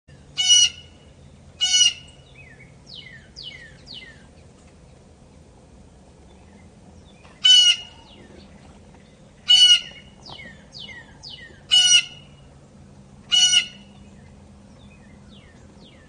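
Blue jay giving loud, harsh jay calls: six short calls, two near the start and four more about two seconds apart later on, with softer falling notes between them.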